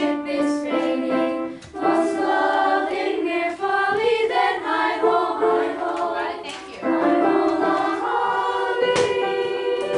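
Children's choir singing in parts, sustained notes held together in unaccompanied harmony during a rehearsal run-through of the piece.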